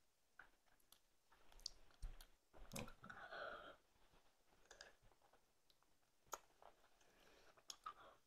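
Quiet mouth sounds of someone sucking an extremely sour hard candy: scattered soft clicks and lip smacks, with a brief murmured vocal sound about three seconds in.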